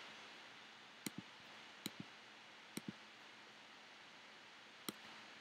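Faint clicks of a computer pointing device: a quick double click about a second in, a single click near two seconds, another double click near three seconds and a single click near the end, over a low steady hiss.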